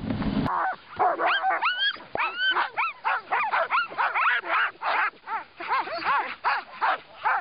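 Wind rushing over the microphone for the first half second. Then a team of sled dogs in harness yelping, whining and barking: a dense run of high calls that rise and fall, several a second, overlapping.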